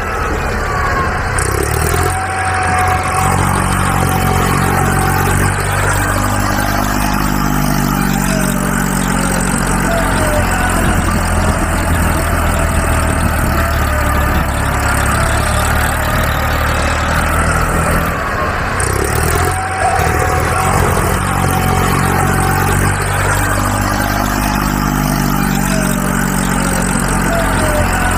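Heavy vehicle engine idling and slowly revving up and down, a recorded engine sound effect whose pattern comes round again about every 16 seconds, as a loop does.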